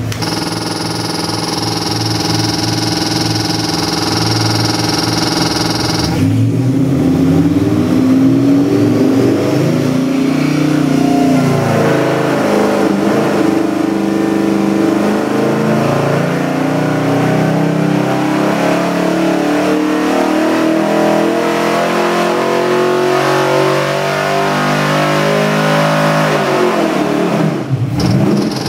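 Custom-built Ford 347 stroker small-block V8, built on a Boss 302 block with forged internals and a Holley carburetor, running on an engine dynamometer. It idles steadily for about six seconds, then is put through a loaded dyno pull, its revs climbing steadily for about twenty seconds. Near the end the revs drop away as the pull finishes.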